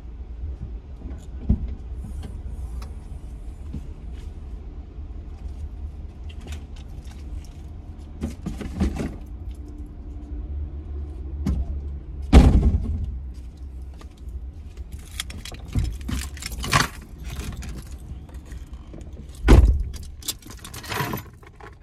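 Car interior with a steady low engine idle. A car door thumps shut about halfway through and again, louder, near the end, with rustling and keys jangling as the driver gets in.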